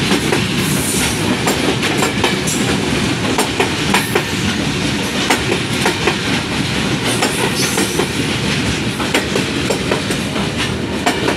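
Freight train's covered wagons rolling past on the next track, a steady loud rumble of steel wheels with frequent clicks as they cross the rail joints.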